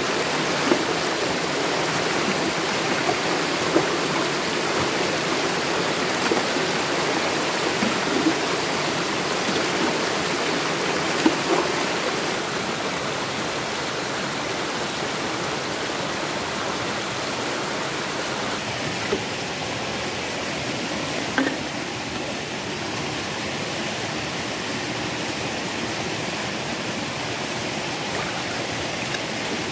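Mountain stream rushing over rocks and a small cascade, a steady loud wash of water, a little quieter after about twelve seconds. A few short sharp knocks stand out above it.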